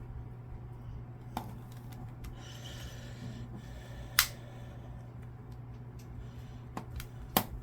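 A few sharp clicks and light rubbing as small plastic parts of an Xbox One controller and its pry tools are handled, the loudest click about four seconds in and several more near the end, over a steady low hum.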